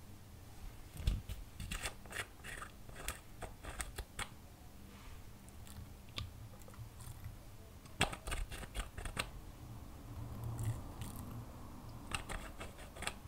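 Small sharp clicks and taps of long fingernails on a glass nail polish bottle as it is handled and opened, in three short clusters.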